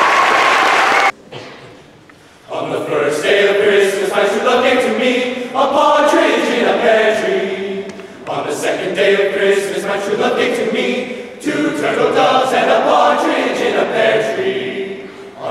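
Applause breaks off about a second in. After a short pause a men's choir begins singing a cappella, in phrases with brief breaks between them.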